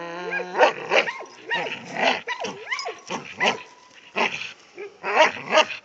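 Blue-nose pit bull giving repeated short barks and yips while tugging on a rope toy, with one longer, drawn-out cry at the start.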